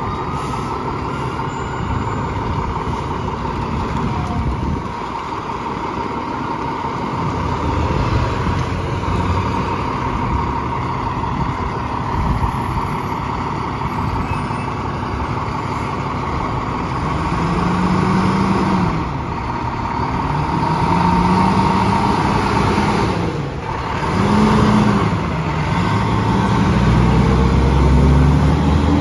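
Fire department tower ladder truck's diesel engine running as the truck pulls out and passes close by. Its revs rise and fall several times in the second half as it gets under way, and a rising tone begins right at the end.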